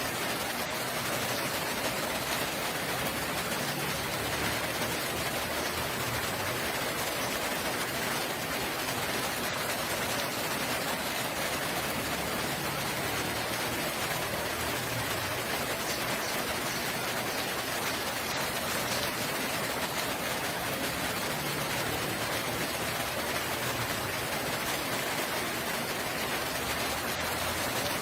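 Steady rain falling: an even, unbroken wash of rain noise.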